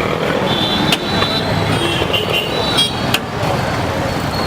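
Busy street noise: motor traffic running steadily, with a couple of sharp clanks.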